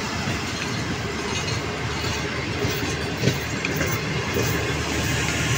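Pakistan Railways express train's passenger coaches rolling past, with a steady rumble and the wheels clacking on the rails.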